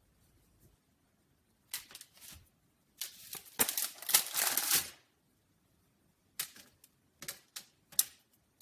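Kitchen utensils clattering and scraping in short bursts: a dense run of rapid clicks and scrapes for about two seconds, then a few single sharp clicks near the end.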